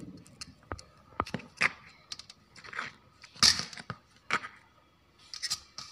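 Handling noises: a string of short clicks and brief rustles, irregularly spaced, with the loudest rustle about three and a half seconds in.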